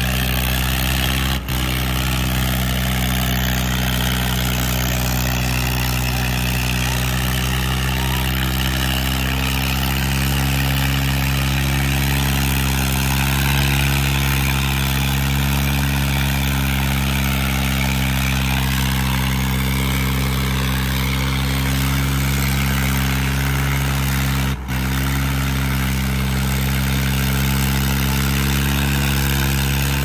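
Two tractor diesel engines, a John Deere 5210 and a red tractor, running hard under full load in a tug-of-war pull, with a steady low engine drone. The sound cuts out very briefly twice, about a second and a half in and again near the end.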